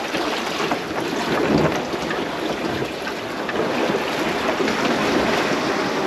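Sea water rushing and splashing along a sailboat's hull under way, with wind buffeting the microphone.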